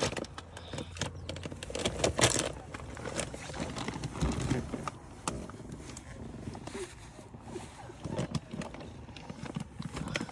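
Scattered clicks, knocks and rustling of things being handled and moved about inside a vehicle cab, as someone rummages for a bag.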